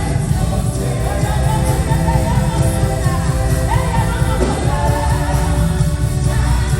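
Live gospel worship music: a band with heavy, steady bass accompanying sung vocal lines.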